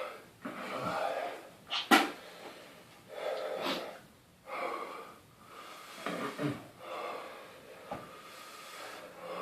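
A man breathing hard, with a string of uneven hissing breaths, puffs and sniffs and one sharp hissing intake about two seconds in. He is reacting to the mouth and throat burn of a superhot chilli.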